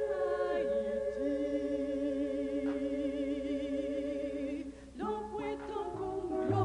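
Instrumental intro of a live song: long held chords with a wavering held note above them. About five seconds in the music moves to new chords and a bass line comes in.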